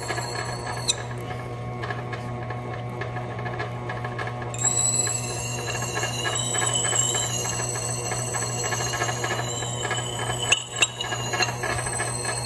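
Axe blade being ground on a large antique wet grindstone driven by an electric motor: a steady motor hum under a high, wavering squeal of steel on the stone. The squeal stops about a second in and comes back about four and a half seconds in, and a couple of sharp clicks sound near the end.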